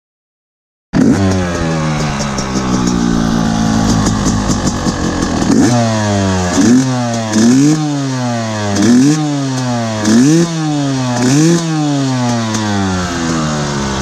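Stock Yamaha YZ250X two-stroke single-cylinder dirt bike engine on its stock silencer. It comes in abruptly about a second in and idles steadily, then about six seconds in it is blipped repeatedly, each rev rising sharply and falling back, before it settles to idle near the end.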